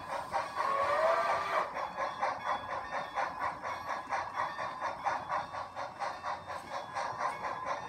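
Sound-equipped HO scale model steam locomotives, Southern 630 and 4501, running double-headed: a steady rhythmic chuffing, about four to five chuffs a second, with a brief wavering tone about a second in.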